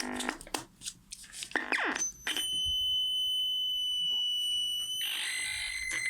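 Fort Processor sound-art synth circuit switched on for a test: a few clicks and short chirps, then a steady high-pitched electronic whistle from about two seconds in that drops to a lower, hissier tone near the end. The output is not what it should be, which the builders put down to remaining bad solder joints; the light sensor is not responding.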